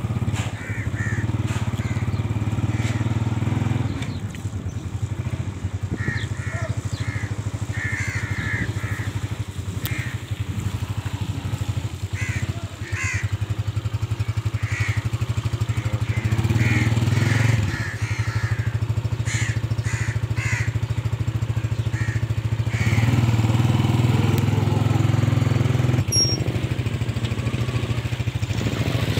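Small motorcycle engine running as it is ridden slowly, its note dipping and picking up again several times.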